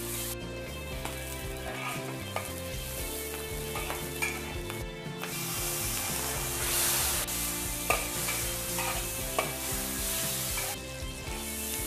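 Sliced pork belly and dried chillies stir-frying in a hot wok: a steady sizzle with the metal spatula scraping and knocking against the wok now and then. The sizzle swells about six seconds in as light soy sauce goes in.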